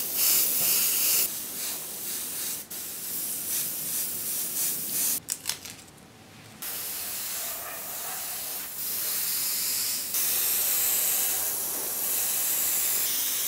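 Airbrush spraying paint, a steady hiss of air and paint mist, broken by a pause of about a second and a half a little past the middle before spraying resumes.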